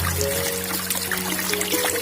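Background music with held notes over a low bass line, and beneath it a light trickling of water with scattered small ticks.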